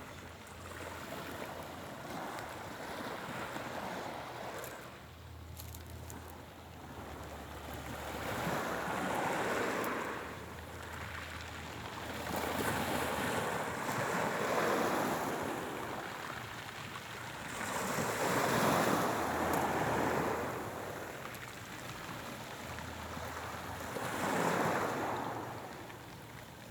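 Sea waves washing in, a rushing surge swelling and fading about every five seconds.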